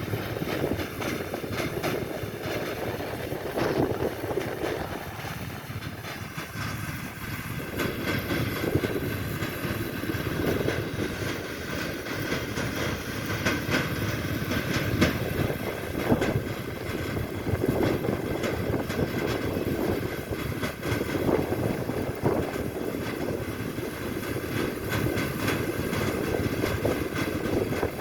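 Wheat-harvesting machinery running steadily, a continuous mechanical din that swells and eases a little every second or two.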